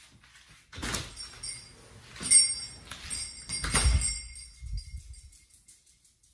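A front door being opened and shut as someone goes out: clicks and clatters of the latch and handle, then a heavy thud of the door closing about four seconds in, with a thin metallic ringing that lingers a few seconds before fading.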